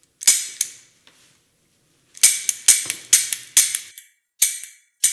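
A semi-automatic pistol firing sharp shots, each with a short ringing tail: two about a third of a second apart, then after a pause of about a second and a half a rapid string of about seven more.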